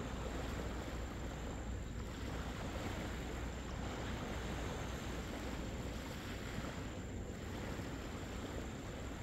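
Steady wind and low surf at the shoreline, with wind rumbling on the microphone.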